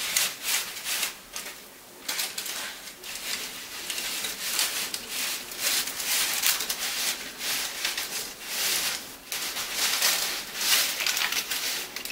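Knife sawing back and forth through a baked chocolate cake to cut off its top layer: a rough scraping rasp with each stroke, about one or two strokes a second.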